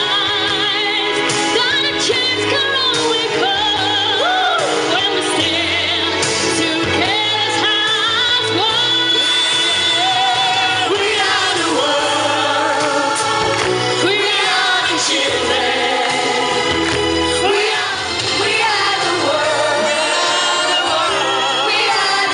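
Pop-style song: voices singing a melody with vibrato over instrumental accompaniment with a steady bass line.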